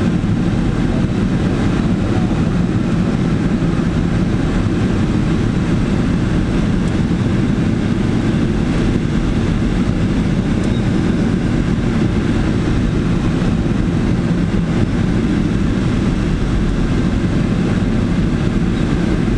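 Steady rushing airflow noise inside the closed canopy of a Blanik L-23 all-metal training glider on aerotow, a low, even rush with no changes.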